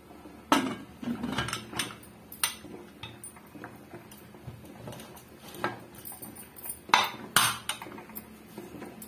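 Aluminium pressure cooker lid being set on the pot and twisted shut: a string of metal clanks and scrapes, the loudest about half a second in and again around seven seconds in.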